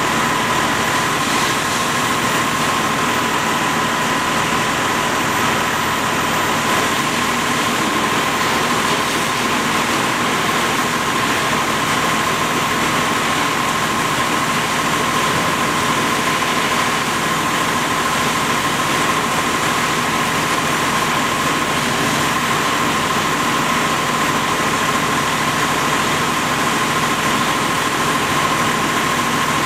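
A fire engine's engine running steadily to drive its pump: a constant drone with a steady high whine, mixed with the hiss of water from the hose nozzle playing on the burning car.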